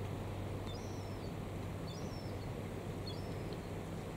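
Wind on the microphone over the sea, with a steady low hum underneath. A small bird gives a short high chirping call three times, about every second and a half.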